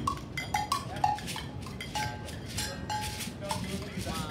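Scattered light taps on hand percussion, about four a second and unevenly spaced, several leaving a short ringing note.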